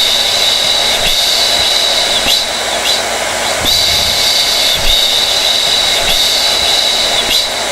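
Hair dryer running steadily: a loud rush of air under a high motor whine that briefly dips a few times.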